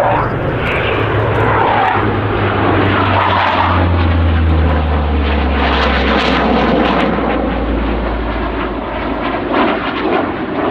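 Low aircraft flyby: a steady, loud drone from a C-130 Hercules's four turboprop engines over a broad roar. The low hum drops in pitch about four seconds in as the aircraft passes overhead.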